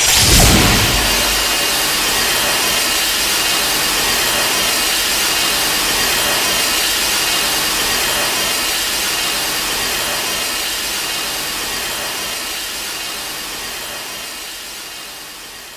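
Kiryu Mechagodzilla film sound effect: a sudden blast, then a long steady rushing noise with a faint high whine in it, fading slowly over the last few seconds.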